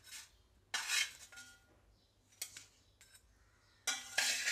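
Metal spatula scraping and clinking against the bottom of a metal pot as fried thalipeeth are slid up and lifted out, in a few short scrapes with pauses between, the loudest near the end.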